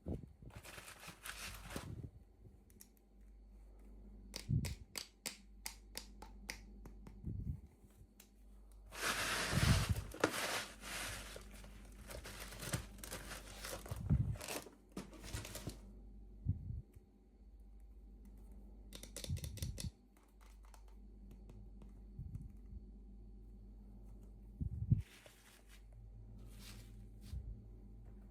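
Toy packaging being opened by hand: intermittent tearing and crinkling of wrapping, mixed with small clicks and taps, in short bursts with quiet pauses between.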